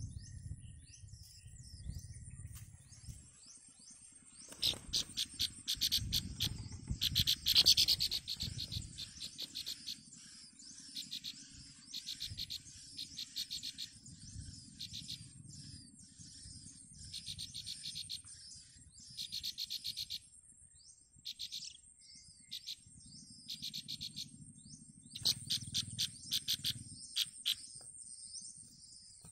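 Nestling songbirds begging in repeated bursts of rapid, high chirps, loudest about seven to eight seconds in, over a steady high insect trill and an on-and-off low rumble.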